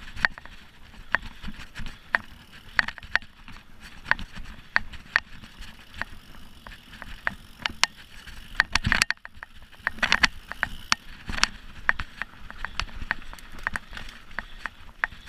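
Mountain bike clattering along a rough dirt trail: irregular sharp clacks and rattles from the bike jolting over bumps, over a steady rumble of tyres and wind. A heavier thump comes about nine seconds in.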